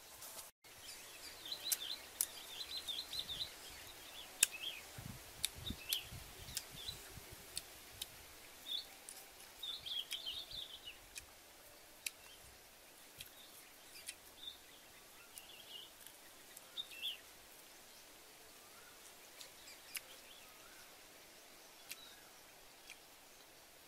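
Small birds chirping in woodland, short high calls that come thickest in the first half, over a faint steady outdoor hiss. Scattered sharp clicks run throughout, with a few low rumbles about five to seven seconds in.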